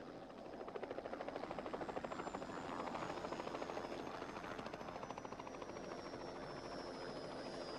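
Light helicopter flying low and fast, its rotor blades chopping in a rapid, even beat that grows louder about a second in. A high whine slowly falls in pitch.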